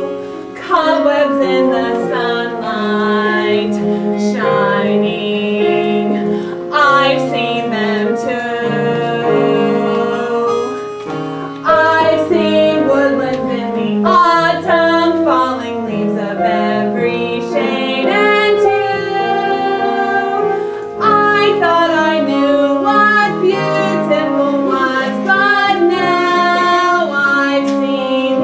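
A woman singing a slow show tune with instrumental accompaniment, holding long notes.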